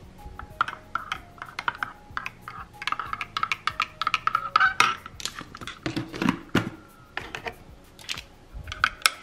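Metal teaspoon stirring coffee in a ceramic mug, clinking rapidly against the inside of the mug with short ringing tings.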